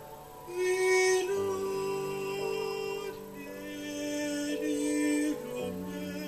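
Slow worship music of long held notes that step to a new pitch every second or two, with singing over it and two louder swells.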